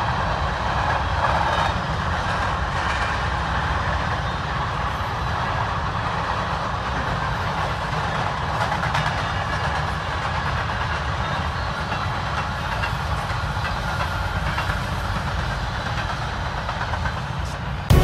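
Freight train of covered hopper grain cars rolling past, giving a steady rumble of wheels on rails.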